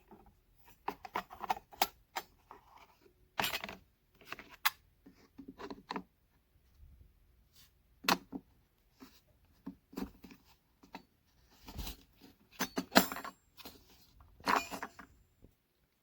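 Irregular clicks, taps and knocks of small hard objects being handled, with some rustling between them; the sharpest knocks come about three and a half, eight and thirteen seconds in.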